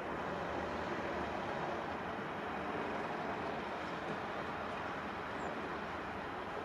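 Tracked CAT excavator's diesel engine running steadily, heard from some distance as an even rumble and hiss, with no cutting or crunching of metal.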